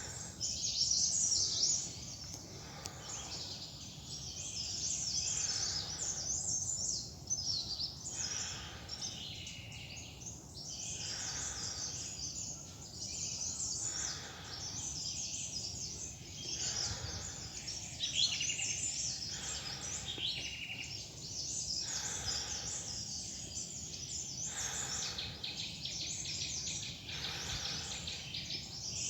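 Several forest birds chirping and calling, with many short, overlapping high calls all through, over a steady low background noise.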